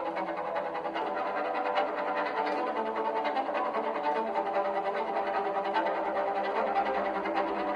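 Background music played on bowed strings, led by a violin.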